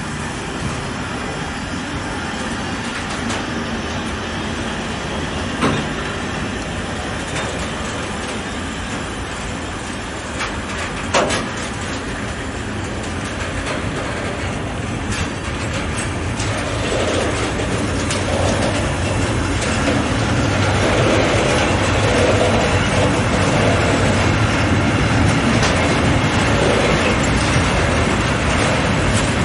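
Freight train of covered hopper wagons rolling past, its wheels running steadily on the rails, with two sharp knocks about six and eleven seconds in. It grows louder from about halfway through.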